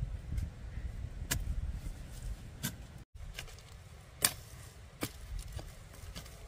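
Several sharp knocks or taps at uneven intervals, the loudest about four seconds in, over a low rumble.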